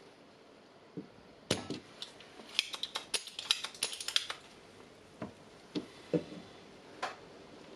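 Sharp clicks and a rapid clatter of small hard objects as a desoldering pump and small parts are handled on a wooden workbench during soldering work. There is a loud click about one and a half seconds in, a dense run of clicks from about two and a half to four and a half seconds, and then a few single clicks.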